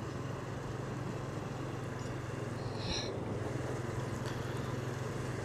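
Steady sound of riding a motorcycle: a constant low engine hum under road and wind noise.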